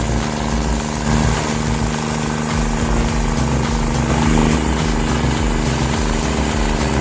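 A machine's engine running steadily at constant speed.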